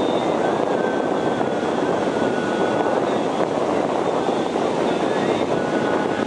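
Steady rushing of floodwater pouring through a dam spillway, an even, unbroken noise at a constant level.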